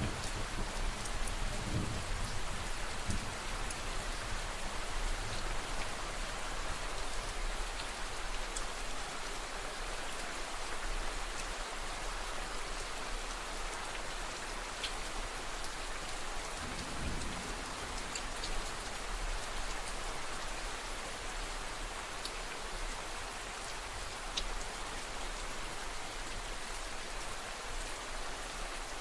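Steady rain falling on a surface, a continuous even hiss with scattered individual drops ticking. A brief low rumble comes about seventeen seconds in.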